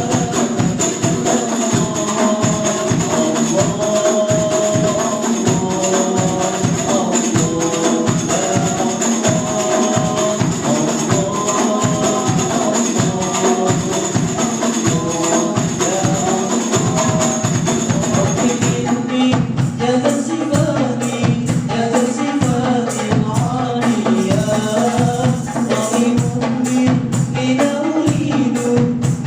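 A sholawat group singing an Islamic devotional song, with a steady, fast beat of hand percussion. About two-thirds of the way through, the singing and the accompaniment change.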